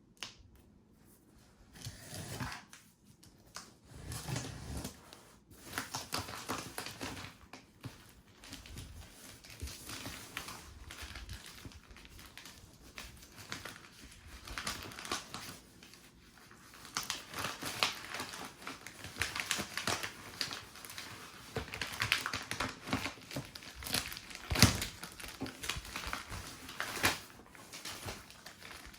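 A plastic model kit's packaging being handled: plastic bags crinkling, with many small clicks and taps from plastic parts and the box. One sharper knock comes near the end.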